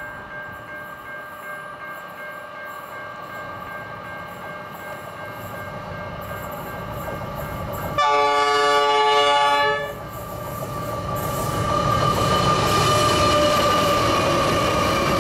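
Pacific National NR class diesel-electric locomotives hauling a double-stack container freight approach, their engines growing louder. About eight seconds in they sound one horn blast of nearly two seconds. Then the locomotives pass close with loud engine noise and a steady whine that drops slightly in pitch.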